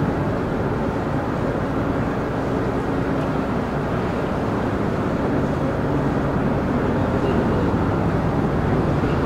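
The Toba-Maru ferry's engines and propellers working as it manoeuvres alongside the berth, churning the water. The sound is a steady low rumble with a faint hum.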